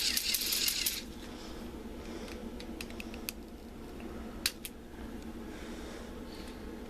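K'nex roller coaster lift hill running: a loud rattle of rapid plastic clicks from the lift chain and ratchet for about the first second. It then settles into a steady low motor hum with a few scattered sharp clicks, the loudest about four and a half seconds in.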